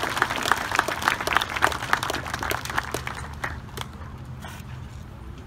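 Audience applauding, the clapping thinning out and dying away about three to four seconds in.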